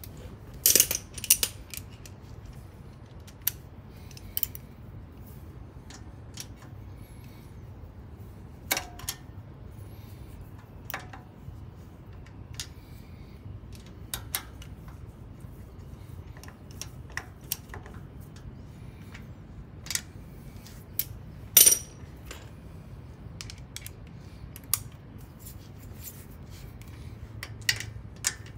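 Scattered sharp metallic clinks and clicks of a socket wrench and bolts being handled, threaded in and tightened on a Harley-Davidson's air-cleaner backing plate, with the loudest clinks near the start and about two-thirds of the way through.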